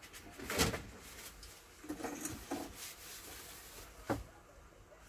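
A few scattered knocks and clatters of kitchen things being handled on a worktop, the loudest about half a second in and a sharp knock about four seconds in.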